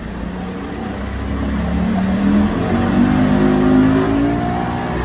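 Mercury 175 hp outboard, fitted with the 200 hp model's engine computer, accelerating hard from a standstill: the engine note climbs steadily in pitch and grows louder for about four seconds as the boat comes up onto plane, then levels off and eases slightly near the end.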